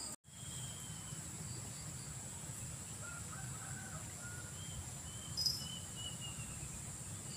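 Rural riverside ambience: a steady high insect drone over a low steady rush. Faint distant bird calls come in from about three to six seconds in, among them a rooster crowing.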